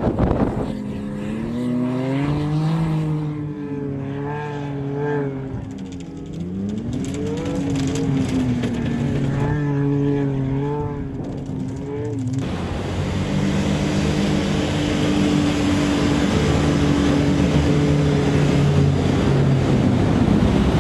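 WaterCar Panther amphibious vehicle's engine revving up and down under load on sand. About twelve seconds in, it gives way to a steady rush of spray, surf and wind, with the engine running steadily underneath as the vehicle pushes through waves.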